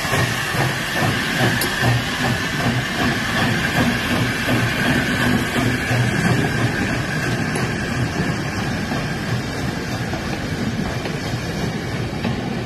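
Steam tank locomotive No. 1054, an LNWR Coal Tank, pulling away with a train of teak carriages: a steady chuffing exhaust beat under a continuous high steam hiss, with the carriages rolling past and their wheels clicking over the rail joints.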